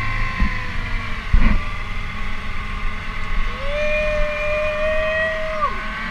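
Small tender's outboard motor running steadily at speed, with water rushing along the hull and a thump about a second and a half in. Near the middle a man lets out a long wordless yell that drops off at the end.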